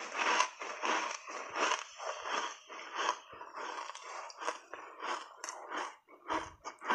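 Chunks of soft ice coated in matcha powder crunching between the teeth as they are chewed, about two to three crunches a second.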